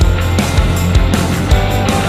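Background rock music with heavy bass and a steady drum beat.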